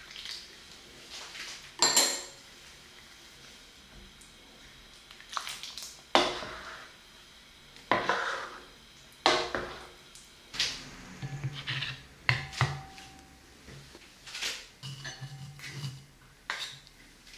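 A ladle knocks and scrapes against a pot as it scoops thick soy milk stew, with the liquid sloshing. There is a separate clunk every second or two, the loudest about two and six seconds in. Near the end the stew is ladled onto a ceramic plate.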